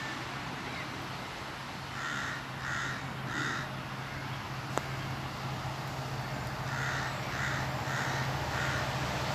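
A crow cawing: three harsh caws about two seconds in, then four more about seven seconds in. Beneath them runs a low steady drone that grows slightly louder near the end, and a single sharp click sounds about halfway through.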